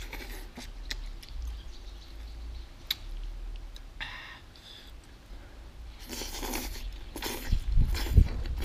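Noodles being slurped off chopsticks in several noisy bursts, most of them in the second half, with a few light clicks earlier on. A couple of low thumps near the end are the loudest moments, over a steady low hum.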